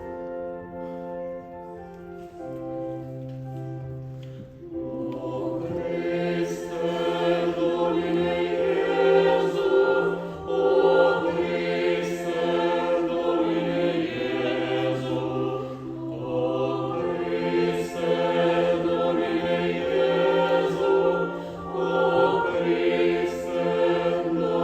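Church choir singing. It starts softly on held chords and grows much fuller about five seconds in, with short breaks between phrases.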